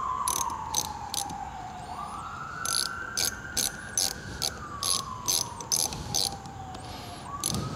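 Sharp metallic clicks, about three a second with a short pause about a second in, as a screwdriver tightens a worm-gear hose clamp over a cloth-wrapped Teflon piston seal to squeeze it down to size. Behind them a wailing tone slowly falls and then jumps back up, about two seconds in and again near the end, like a siren.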